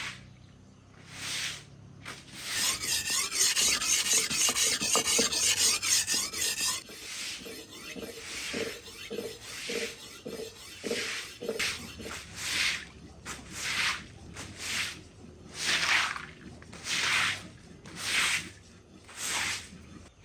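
Rasping, rubbing strokes: a few seconds of continuous scraping, then separate brushing strokes about once a second.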